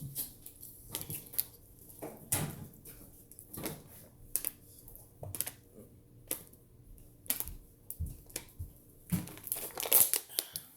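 Irregular crinkling and rustling, as something thin and crinkly is handled. The crackles come unevenly throughout and are loudest near the end.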